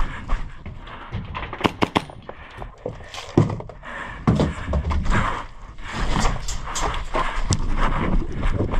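Airsoft guns firing during close-quarters play: sharp snapping shots in quick clusters about two seconds in and again from about five seconds on, with heavier thumps in between.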